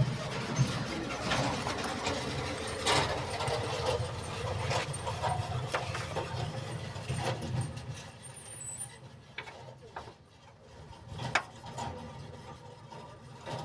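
A motor vehicle's engine running nearby, a steady low hum that fades away about eight seconds in. Scattered sharp clicks and knocks of tools on metal are heard while a car is being worked on.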